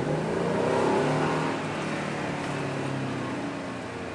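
Dodge pickup truck's engine heard from inside the cab, rising in pitch as it accelerates for about the first second, then settling and slowly dropping as the truck coasts on, with steady road noise underneath.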